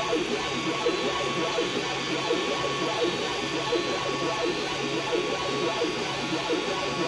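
3D printer running a print: fans whirring steadily under the fast, busy chatter of the stepper motors moving the print head, with a thin steady high tone.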